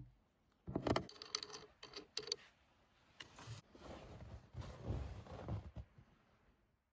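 Handling noise: a quick run of clicks and knocks, then a few seconds of rustling and scraping.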